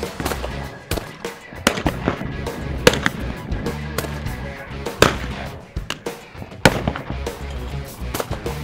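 Several sharp over-and-under shotgun shots at clay targets over background music. The loudest shots come about three, five and six and a half seconds in.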